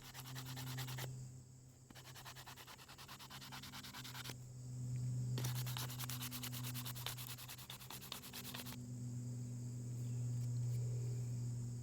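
Sandpaper rubbing back and forth over a wooden revolver grip in quick hand strokes, in three spells that stop about nine seconds in. A steady low hum runs underneath.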